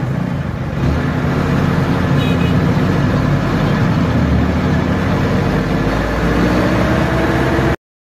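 Bus engine and road noise heard from inside the cab while driving, loud and steady. The engine note rises a little near the end, and the sound cuts off abruptly just before the end.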